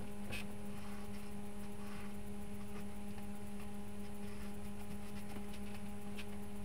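A steady electrical hum at one low pitch, with a few faint soft ticks.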